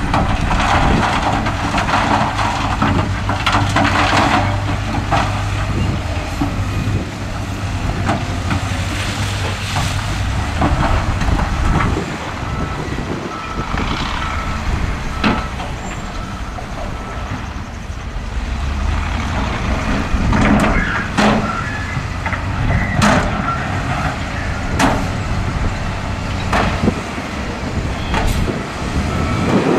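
Diesel engines of a wheel loader and a dump truck running steadily under load as dirt and rock are pushed and tipped. Clanks and knocks of metal and rock come mostly in the second half, and faint repeated beeping sounds around the middle.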